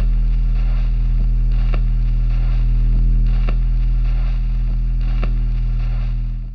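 Loud, steady low electrical hum with irregular crackling clicks over it, cutting off abruptly near the end.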